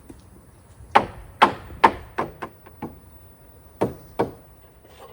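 Hammer blows on a wooden 2x6 purlin, knocking it into position on the rafter: six sharp strikes between about one and three seconds in, the first three loudest, then two more near four seconds.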